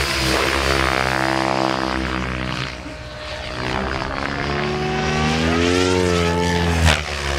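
Two Mikado Logo 700 electric RC helicopters flying 3D aerobatics: the whirring whine of their rotors and drive rises and falls in pitch as they manoeuvre, climbing to a high point about six seconds in and dropping again. A short sharp sound near the end.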